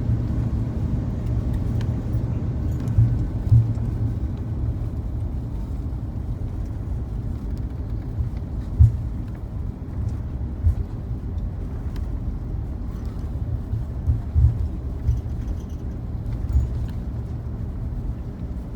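Low, steady rumble in the cabin of an Airbus A330 rolling on the ground after landing, with several short low thumps, the sharpest about nine seconds in.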